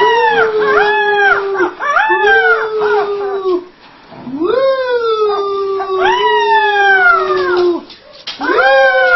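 Puppy howling: a run of long, drawn-out howls, each rising at the start and sliding down at the end, with short breaks between them.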